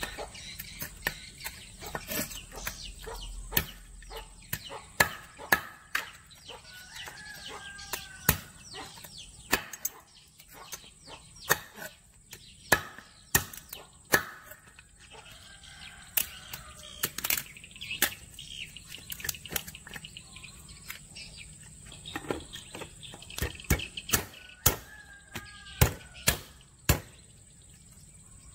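Sharp, irregular cracks and taps as raw crabs are broken apart by hand on a wet wooden cutting board, with birds calling now and then in the background.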